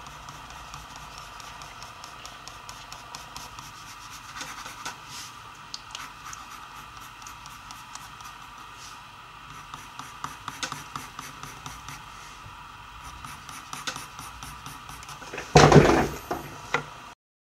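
Colored pencil scratching on paper in many short shading strokes. Near the end, a louder brief clatter as the pencil is set down among other wooden pencils on the table.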